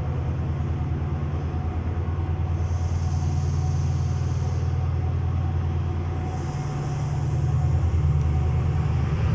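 Class 68 diesel-electric locomotive running with a deep, steady engine drone as it hauls its train out of the platform. The engine note shifts about two-thirds of the way through and grows louder near the end.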